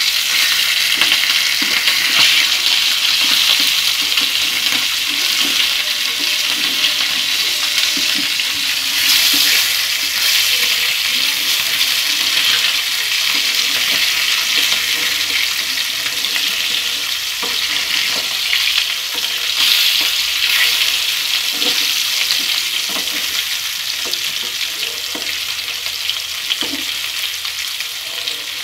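Rui fish steaks sizzling and spitting in hot soybean oil in a frying pan, with now and then the scrape or tap of a metal spatula as the pieces are turned. The sizzle eases a little toward the end as the fish finishes frying.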